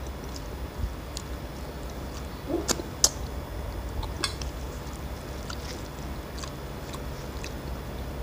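Quiet eating sounds: fingers mixing rice on stainless-steel plates, a few light clicks of steel and some chewing, over a low steady hum. A short meow from a pet cat comes about two and a half seconds in.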